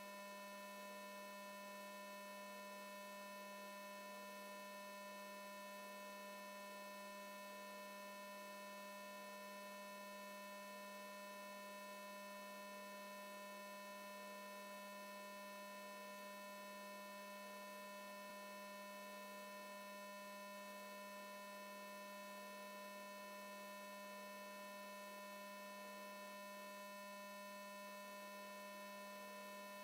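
Faint, steady electrical hum: a low drone with several thin, higher whining tones over it, unchanging throughout.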